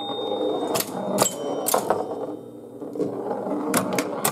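1973 Gottlieb Home Run electromechanical pinball machine running a game: irregular sharp clicks and clacks from its relays, coils and score mechanisms, three in the first two seconds and two more near the end, over a steady electrical buzz from something in the machine holding on when it shouldn't.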